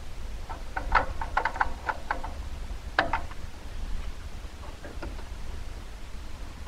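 Small metal clicks and taps of a grille emblem knocking against a 1967-68 Mercury Cougar's chrome grille bars as it is held in place: a quick run of clicks about a second in, one sharper click at about three seconds, and a few faint ones around five seconds, over a low steady hum.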